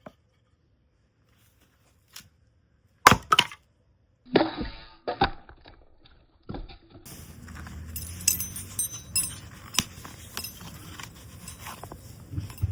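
Hard objects clinking and knocking: two sharp knocks about three seconds in, a short scraping rattle, then a run of light clinks over steady background noise.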